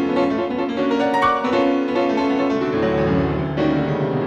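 Piano playing a melody with chords, music of the radio play.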